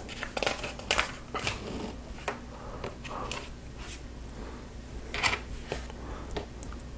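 Plastic LEGO pieces clicking and rattling as they are handled and pressed together, a scatter of short clicks with a few brief rustles, over a low steady hum.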